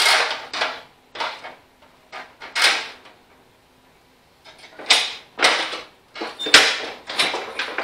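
Control levers of a John Deere 185 riding mower being worked back and forth through their freshly fitted bezels: a string of short scraping clunks of metal lever against bezel and frame, about ten in all, in two groups with a lull in the middle.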